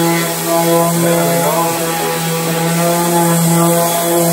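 Electric orbital finishing sander running steadily at full speed as it is worked over a dark-stained maple cabinet door, sanding the old finish down to bare wood.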